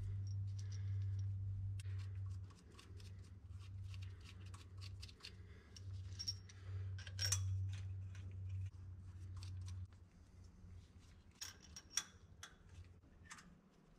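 Light metallic clicks and clinks of bolts and nuts being handled and started by hand on Caterpillar C12 jake brake housings. Underneath is a low steady hum that drops away about two and a half seconds in, returns around six seconds and stops near ten seconds.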